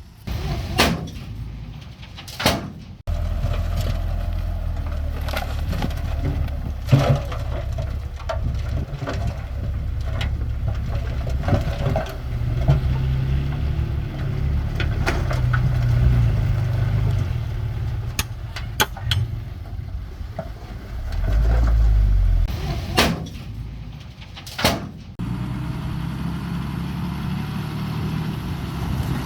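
Mitsubishi bulldozer's diesel engine running under load with a low steady rumble, with sharp metallic clanks several times, the clatter of steel tracks and blade while pushing soil.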